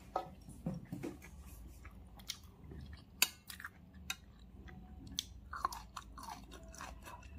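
A person chewing a mouthful of rice and green beans, with scattered light clicks from metal chopsticks; one sharper click comes a little past three seconds in.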